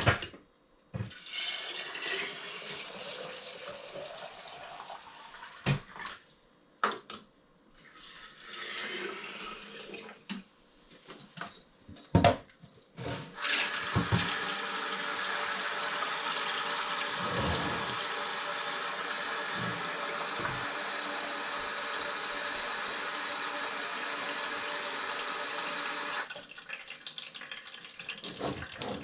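Water poured into glass mason jars of cooked soybeans, with a few sharp clinks of glass. About halfway through a tap runs steadily for about thirteen seconds, then shuts off suddenly.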